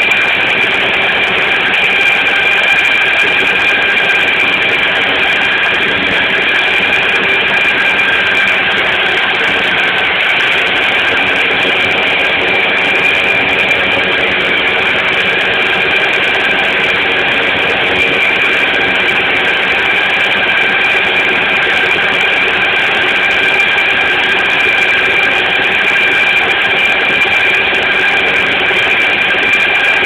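Walker riding mower running steadily while mowing, loud and unbroken, with a steady high-pitched whine over the engine.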